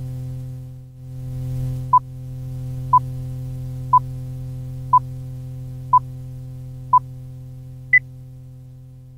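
Electronic countdown: six short beeps exactly a second apart, then one higher beep a second later, over a steady low electronic drone.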